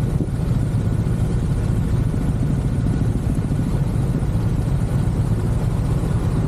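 Motorcycle engines idling at a standstill, a steady low rumble.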